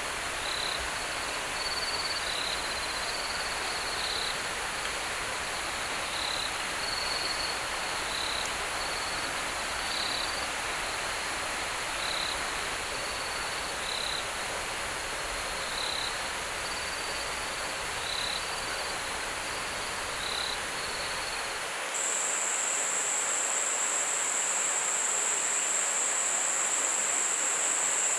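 Rainforest night ambience by a river: a steady rush of flowing water with short, high chirping calls repeating every second or so. About three-quarters of the way through it cuts to a steady, high-pitched insect drone over the water noise.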